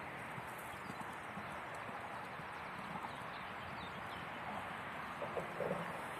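Hoofbeats of a horse cantering on arena sand, soft and irregular under a steady outdoor hiss, with a few brief louder sounds about five seconds in.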